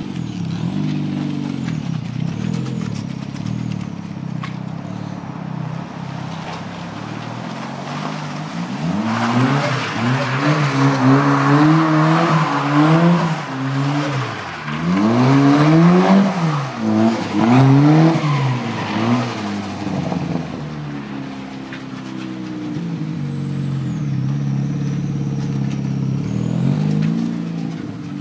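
Saab turbo engine in a rear-wheel-drive VW Golf Mk2 revving up and down over and over as the car slides round. It is steadier at first, revs hardest and loudest through the middle, and settles back toward the end.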